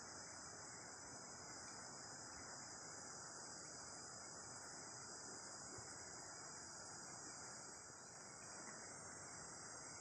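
Steady, high-pitched chorus of insects, unbroken and even throughout, over a faint even background hiss.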